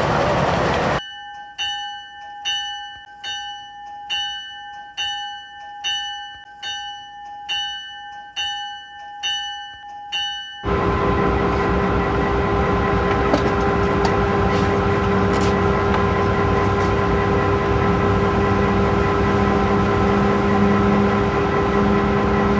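Locomotive bell ringing steadily, about one stroke every three-quarters of a second for some ten seconds. It then gives way to the steady running drone of a train, several steady tones over a rumble.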